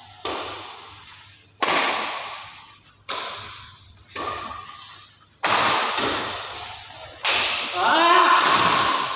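Badminton rackets striking a shuttlecock in a rally: six sharp hits about one to two seconds apart, each followed by a long echo fading in a large hall. A voice calls out near the end.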